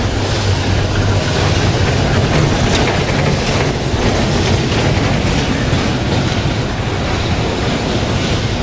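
Electric bumper cars running on the dodgem track floor: a loud, steady rumble with a low hum that is strongest in the first few seconds and faint clicks over it.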